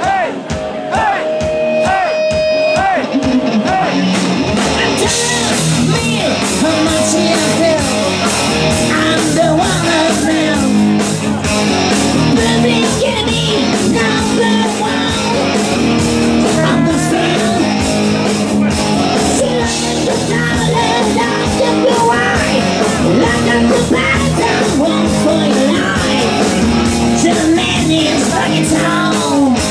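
Loud rock music: electric guitar, drum kit and a singing voice, with the drums and cymbals coming in fully about five seconds in and keeping a steady beat.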